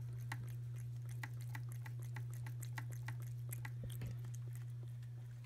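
A cat eating wet chicken-and-gravy cat food straight from the can, with irregular wet chewing clicks, several a second, over a steady low hum.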